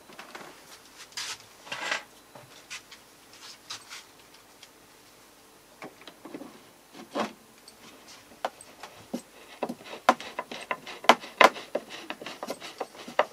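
Thin wooden veneer trim being handled and pressed into place against a wooden cabinet frame, with light rubs and soft knocks. In the second half, a run of quick irregular clicks as a screw is driven by hand with a screwdriver.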